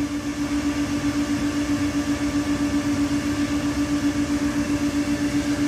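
Steady mechanical hum with a fast, even pulse and a faint hiss, from a running machine or fan.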